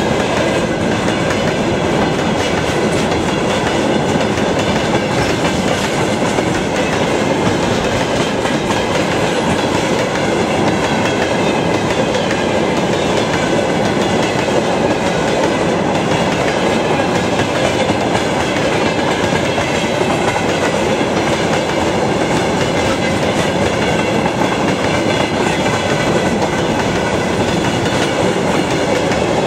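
Long freight train of rail tank wagons rolling past at close range: a steady, loud rumble of wheels on the rails with a clickety-clack over the track.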